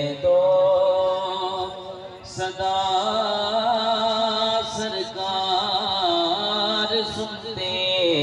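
A man singing a naat, drawing out long held notes that waver and bend between words. He breaks off briefly about two seconds in, then carries on.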